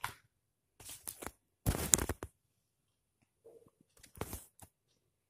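Plastic sheet protectors in a ring binder rustling and crinkling as they are handled, in a few short bursts, the loudest about two seconds in.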